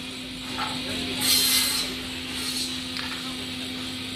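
CNC timber cross-cut saw running with a steady hum, while wooden boards are knocked and slid on its steel table. A short, loud hissing burst comes about a second in and a weaker one a second later.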